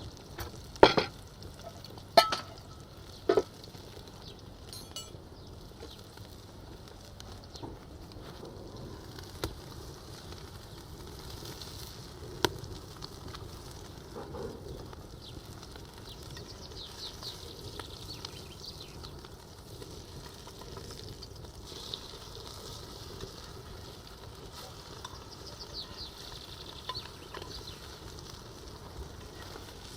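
Fish patties sizzling in hot oil in a frying pan, a steady fry, with three sharp knocks in the first few seconds.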